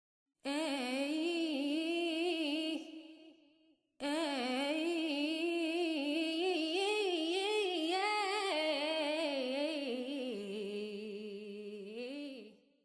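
A woman's voice singing a wordless melody on held vowels, wavering up and down in pitch. It breaks off about three seconds in, comes back, steps down lower near the end and fades out.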